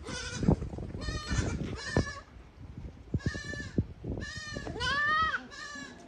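Several goats bleating in turn, a string of quavering calls about half a second each, some overlapping.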